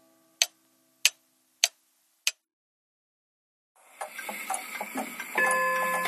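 Antique pendulum clock ticking: four sharp ticks a little over half a second apart over the fading tail of a low ring, then a pause of about a second and a half. The ticking starts again, faster and busier, and a ringing chime of several tones strikes about five and a half seconds in and rings on.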